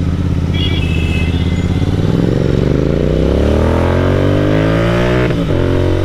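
Royal Enfield 650 parallel-twin engine heard from the rider's seat, accelerating with its pitch rising steadily for a few seconds. About five seconds in, a gear change cuts the revs abruptly and the gearbox drops into a false neutral; the engine then runs on without pulling, its pitch slowly sinking.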